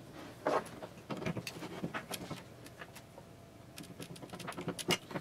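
Scattered small clicks and ticks of a screwdriver and wire ends being worked into the screw terminals of a metal-cased switching power supply, with a cluster of clicks near the end.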